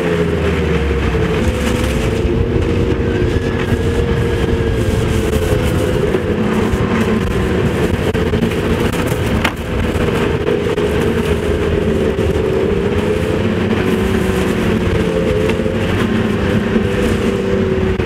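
Snowmobile engine running under way, heard from on board, its pitch wavering up and down with the throttle over a steady rushing noise, with a brief dip about nine seconds in.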